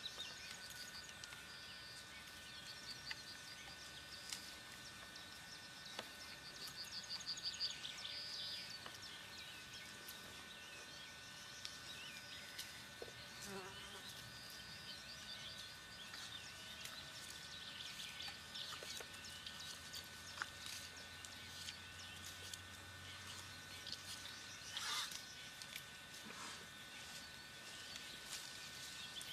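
Faint pasture ambience: birds chirping in short repeated trills over a steady high insect buzz.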